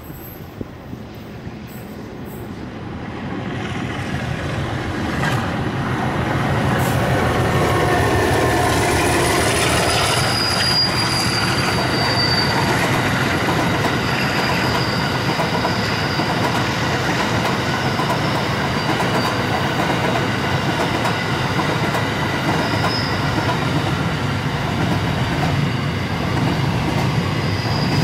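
Alco 80 class diesel locomotive coming up and passing, growing louder over the first several seconds, its engine note dropping in pitch as it goes by. It is followed by a long string of empty container flat wagons rolling past with a steady high wheel squeal.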